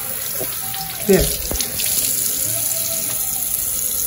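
Water running steadily from a bathroom sink faucet into the basin.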